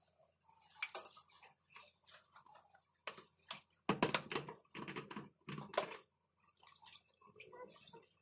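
Irregular clicks, knocks and clatter of metal kitchen utensils and a plastic colander being handled, busiest about four to six seconds in.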